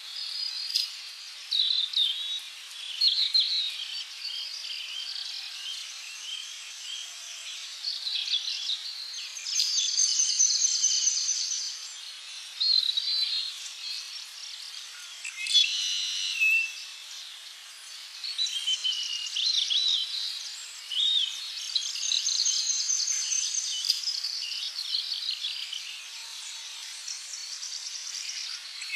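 Several birds singing and calling together: overlapping short chirps, trills and warbled phrases, over a faint steady hiss of insects or ambience.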